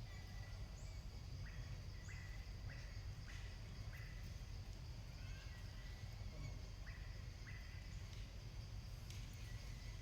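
Faint outdoor ambience: short high chirping calls repeat every half second or so over a steady low rumble.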